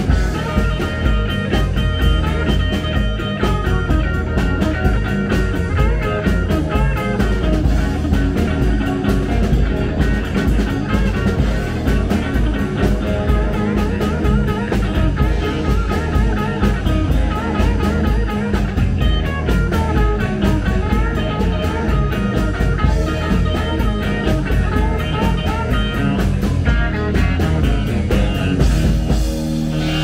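Live rock band playing an instrumental passage: guitar over bass and drums with a steady beat.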